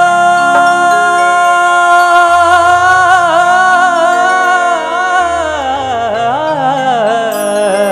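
A man singing a long, held note with vibrato into a microphone, then sliding down through an ornamented phrase about five seconds in. Under the voice, sustained accompaniment chords step down to lower notes.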